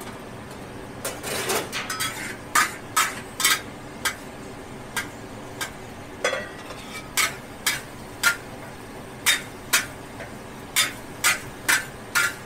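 Metal spatula clanking and scraping against a steel wok as noodles are stirred and scooped into a steel mug: about twenty irregular sharp clinks over a steady low hum.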